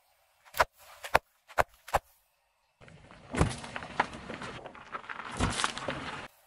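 A car tyre running over things on asphalt. It makes four short sharp cracks in the first two seconds as it presses onto bags of small plastic beads. Then comes rough tyre noise on the road with two heavy thumps as it flattens a drink carton.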